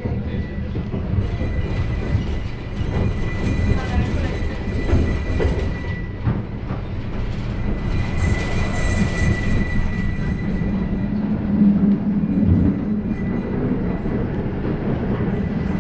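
Inside a moving tram: the steady rumble of the wheels on the rails and the running gear, with scattered clicks over the track and a thin steady whine. About eight seconds in, a tram passing close by in the other direction adds a brief louder rush.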